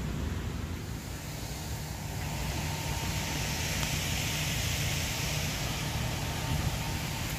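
Steady rushing hiss of a waterfall falling into a gorge, growing louder about two and a half seconds in, over a low steady rumble.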